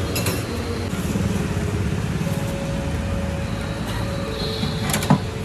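Steady low rumble of street traffic, with a single sharp clack about five seconds in.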